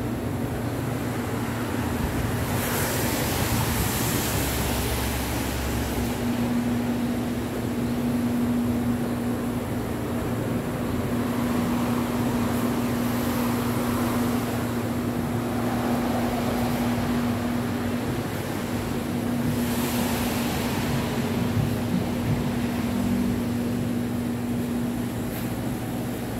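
Steady street traffic noise with a constant low mechanical hum underneath, swelling louder twice: a few seconds in and again about twenty seconds in.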